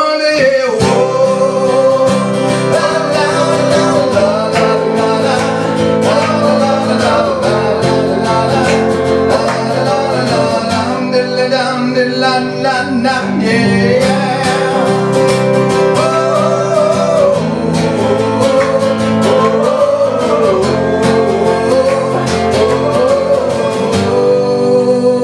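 Live rock-and-roll music played loud on electric and acoustic guitars, with a wavering melody line over steady strumming.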